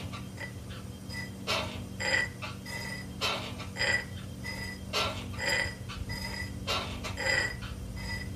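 Hand tapping a leather-hard clay pot off-centre on a spinning electric pottery wheel to centre it for trimming, the taps coming in pairs about every second and a half, over the wheel motor's steady hum. A faint high chirp repeats about twice a second.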